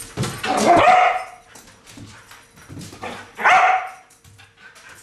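A Border Collie barking twice in long, drawn-out barks: one about a second long near the start, and a shorter one about three and a half seconds in, while it is worked up by a cat toy.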